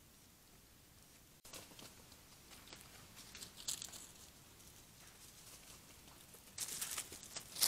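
Dry leaf litter crackling and rustling under the feet of a tayra and her young as they move about close by, in irregular bursts, loudest near the end. Before it there is only a faint steady hiss that cuts off suddenly about a second and a half in.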